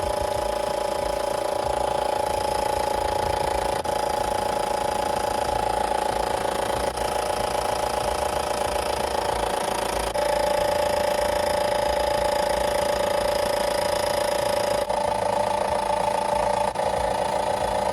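A milking machine's vacuum pump motor running with a steady hum, milking the cow out.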